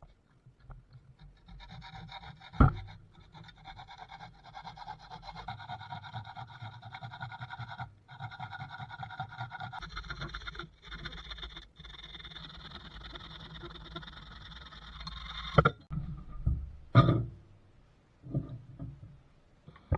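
A hand tool rasping or rubbing steadily on wood for about fourteen seconds, with a few short breaks, then several sharp knocks near the end.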